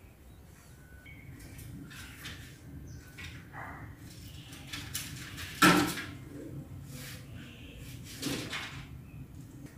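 Handling noises: scattered light knocks and rustles, with one sharp knock a little past halfway and a softer one near the end, over a low steady hum.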